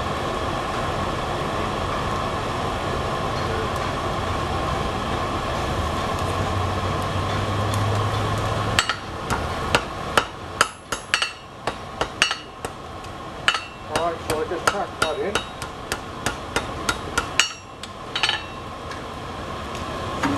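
A steady rushing background noise, then from about nine seconds in a blacksmith's hand hammer striking hot steel on an anvil: a quick, uneven run of a few dozen ringing blows lasting about ten seconds. The steady rushing returns near the end.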